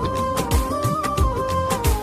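South Asian film-style music with a melodic line and a steady drum beat.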